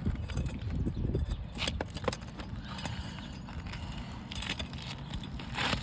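Irregular taps, knocks and scrapes of a pry tool and asphalt shingles as a shingle is worked loose from its nails, over a steady low rumble.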